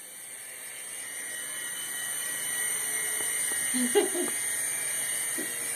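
Small remote-control toy helicopter's electric motor and rotor whining at a steady high pitch, growing louder over the first couple of seconds and then holding. A sharp click and a brief voice sound come about four seconds in.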